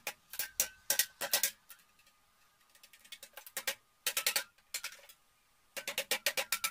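Carrion crow pecking hard at a metal drink can with its beak, in quick runs of sharp metallic taps, with a pause of about two seconds in the middle.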